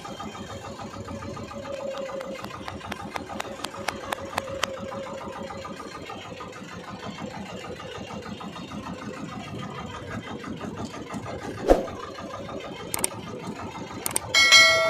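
Fishing boat's engine running steadily. A sharp thump about twelve seconds in, and a short chiming tone near the end.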